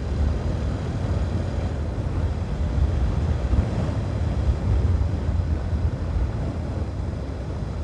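Wind rumbling on a microphone while riding a motorcycle, a steady low buffeting with road and engine noise beneath. The microphone carries a makeshift anti-wind fix that is being tested, and wind noise still comes through.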